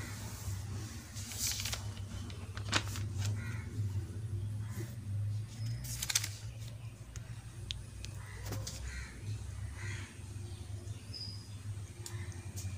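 Paper diary pages being handled and turned, with crisp rustles and sharp clicks, over a steady low hum. A few faint animal calls sound in the background.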